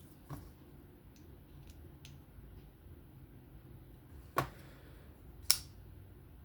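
Folding pocket knife being worked by hand: a light click early on, then two sharp metallic clicks about a second apart as the blade swings on its newly fitted bearings and snaps into place.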